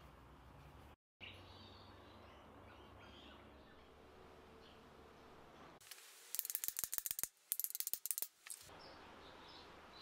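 Two quick runs of ratchet clicking, each about a second long, as the small screws of a nameplate are driven home. Before the clicking there is a faint, steady low hum.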